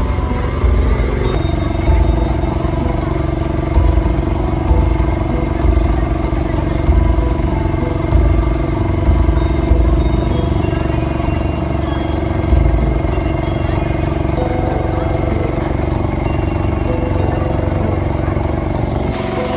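Motorboat engine running steadily under way, a constant hum with irregular low thumps.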